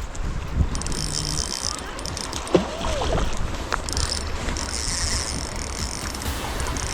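Wind rumbling on the microphone over running creek water, with a brief vocal sound about two and a half seconds in.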